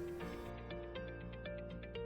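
Background music: soft instrumental with steady held notes and a light, regular plucked or struck pattern.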